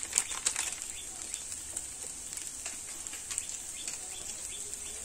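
A small plastic spice packet crinkling and rustling in the hands as garam masala powder is shaken out over the pan. The crackling is densest in the first second, then thins to scattered crinkles over a faint steady hiss.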